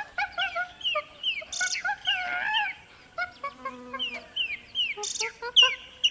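Birds calling: a busy run of short, sharply falling chirps and clucks, with a couple of brief high buzzy notes.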